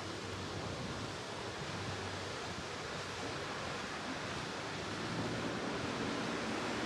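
A yacht under way: a steady rush of water along the hull and wind noise, with a low, steady engine hum underneath.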